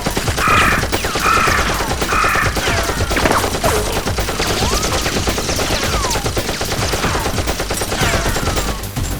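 Rapid gunfire: a dense volley of shots, many a second and without a break.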